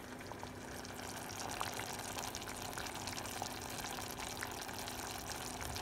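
Rabbit pieces simmering slowly in dry white wine and olive oil in a stainless steel pot on a low gas flame: a faint, steady bubbling hiss with scattered small pops.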